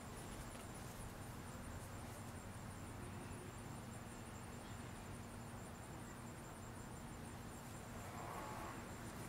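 Faint outdoor background: a steady low hum, with a thin, high, evenly pulsing trill of insects over it.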